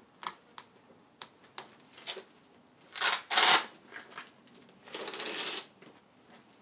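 A folding solar panel being opened on concrete: light taps and clicks, then its Velcro closure ripped open in two loud, quick tears about three seconds in, followed by a half-second rustle as the panel is unfolded.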